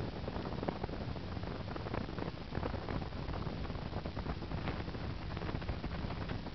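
Motorboat underway: the outboard engine's steady drone under wind buffeting the microphone in irregular gusts.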